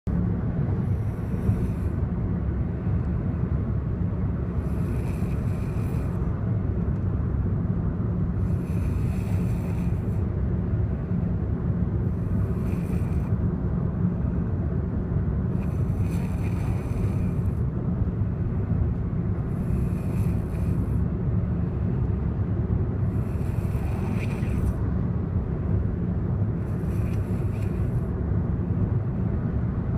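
Snoring with slow, even breaths, a snore about every four seconds, over a steady low rumble.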